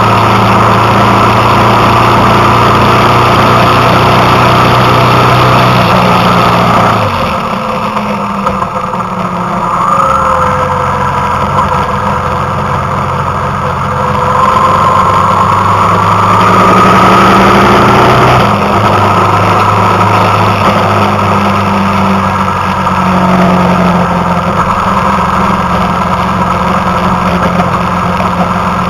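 Motorcycle engine running under way on a winding road. It eases off about seven seconds in, pulls again, and climbs in pitch for a few seconds before dropping back at about eighteen seconds.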